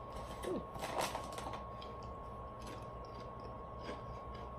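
A few faint crinkles and clicks from a chip bag being handled in the first second and a half, then only a quiet steady hum with a thin high tone.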